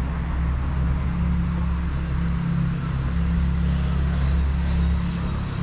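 Motor vehicle engine running close by, a steady low hum over street noise.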